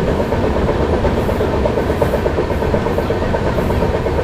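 Moving train running on the rails: a steady low rumble with a fast, even rattle of wheels over the track.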